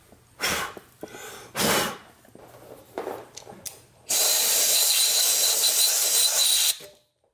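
Compressed-air blow gun blasting drill chips out of a freshly drilled hole in an aluminium engine casing: one steady hiss of about three seconds with a thin whistle in it, stopping abruptly, after a few short rustles and puffs.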